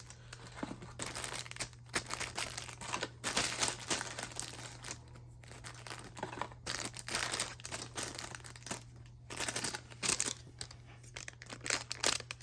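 Foil wrappers of trading-card packs crinkling and tearing as they are handled and opened, in irregular rustling bursts with a faint steady low hum underneath.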